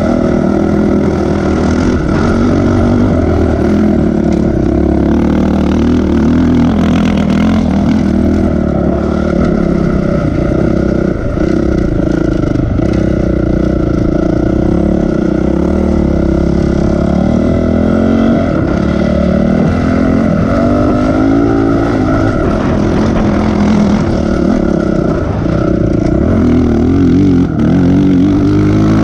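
Dirt bike engine running hard, its pitch rising and falling again and again as the throttle is worked and the gears change.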